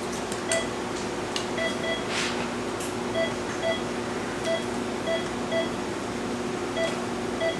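Operating-room patient monitor giving about ten short beeps at uneven intervals, over a steady hum of equipment. The beat tones follow a heart that a defibrillator shock has not returned to sinus rhythm.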